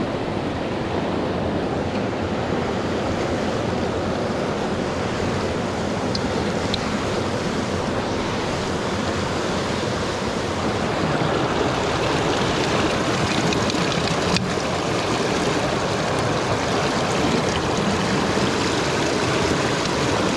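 Fast mountain river rapids rushing over boulders: a steady whitewater rush. A single sharp click about fourteen seconds in.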